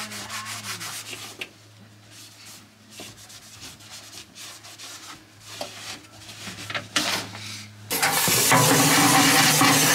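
A cloth towel rubbing over a car's dashboard and gauge in short strokes, over a steady low hum. About eight seconds in, a steam cleaner's jet starts with a sudden loud, even hiss that continues.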